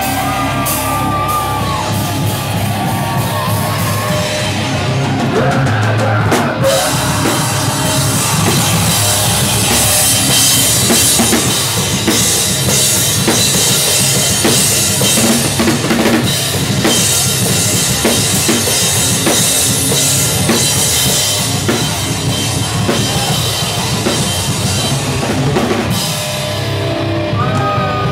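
Rock band playing live at full volume, the drum kit to the fore, with a heavy wash of crashing cymbals from about six seconds in until near the end.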